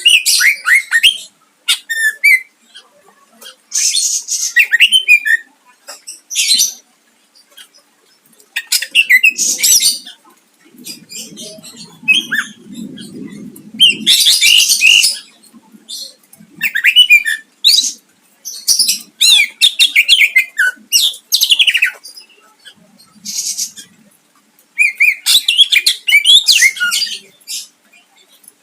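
Greater green leafbird (cucak ijo) singing in vigorous bursts: rapid, high, sharp chattering phrases of a second or two each, broken by short pauses, with mimicked notes of other birds worked in.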